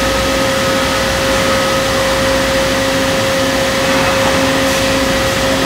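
Doosan Puma V550-2SP vertical turning center running under power: a steady machine hum and whine with one constant mid-pitched tone over a wash of noise, and a fainter lower tone that keeps cutting in and out.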